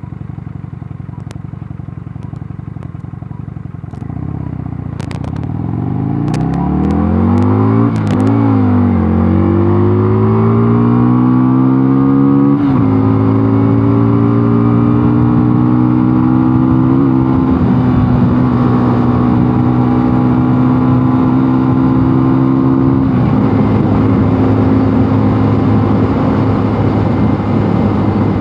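Mondial Nevada 250 motorcycle engine pulling away and accelerating through the gears. The pitch climbs and drops at upshifts about eight and twelve seconds in, then holds steady at cruising revs, with another shift near the end.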